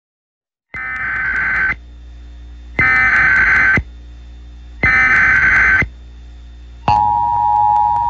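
Emergency Alert System SAME header: three bursts of screeching digital data tones, each about a second long with a second's gap between them. About seven seconds in, the steady two-tone EAS attention signal begins.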